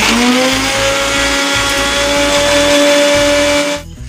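Loud electric mixer grinder (mixie) blending muskmelon pulp with ice cubes in its jar. Its motor whine rises slightly as it comes up to speed, holds steady, then cuts off near the end.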